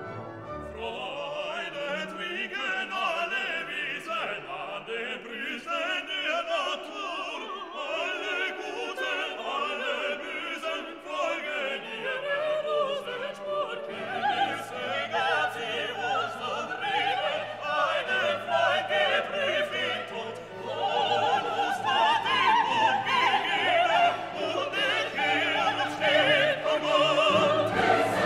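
Background music: classical orchestral music with operatic singing, voices held with wide vibrato.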